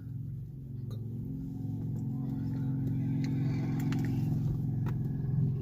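A motor vehicle's engine running with a steady low hum that grows louder over the first few seconds, with a few faint clicks over it.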